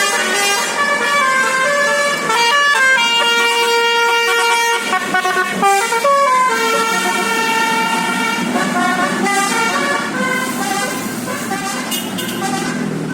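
Indonesian bus 'telolet basuri' musical horn playing a tune: a string of loud held notes stepping up and down in pitch, with a short break a little past the middle.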